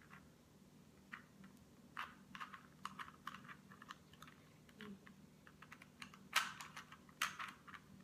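Rubik's Cube being twisted in the hands: its plastic layers clicking and clacking as they turn, in a faint, irregular run of short clicks, with a louder pair near the end.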